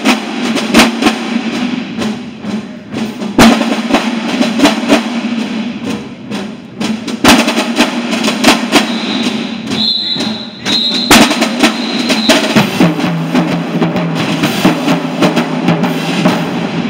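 Marching band drumline playing loud: snare drums and marching bass drums together, with a steady stream of sharp accented hits.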